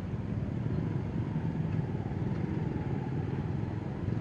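Steady low rumble of road traffic, with motorbike engines running.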